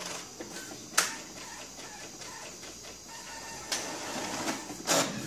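Brother MFC-J430W inkjet printer running a print job, printing a test page: its paper-feed and print-head carriage mechanism whirs, with sharp clicks about a second in and near the end.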